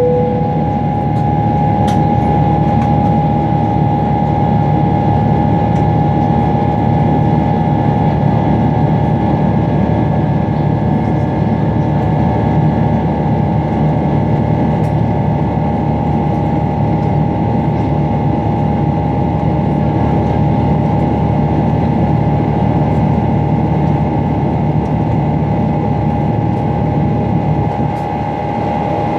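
Boeing 777-300ER's GE90-115B turbofan engines heard from inside the cabin beside the engine during the climb: a steady low rumble with a constant high hum running through it.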